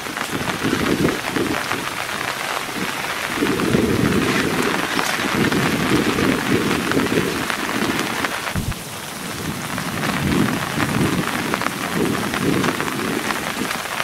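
Steady rain falling, with low rolling rumbles of distant thunder coming and going through most of the stretch in a mild thunderstorm.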